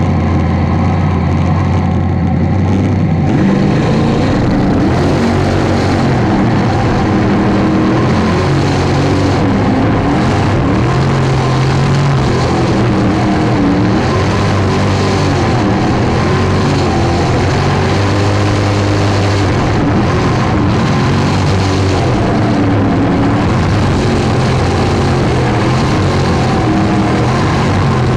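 Jet sprint boat engine, heard from on board, running steadily at the start line for about three seconds, then opening up at full throttle. After that the revs rise and fall repeatedly through the turns of the course, under a constant rush of wind and water spray.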